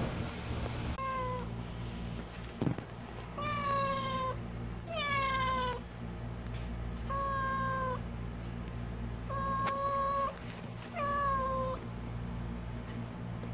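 Calico street cat meowing about six times, short calls each under a second that dip in pitch at the end, a second or two apart. A steady low hum runs underneath.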